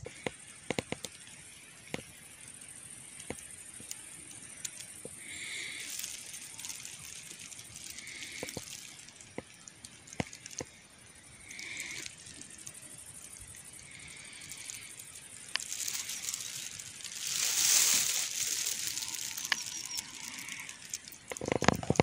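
Leaves and stems of blackberry canes rustling, with small crackles and clicks, as wild blackberries are picked by hand; a louder rustle of foliage comes about three-quarters of the way through. A short high call repeats every few seconds in the background.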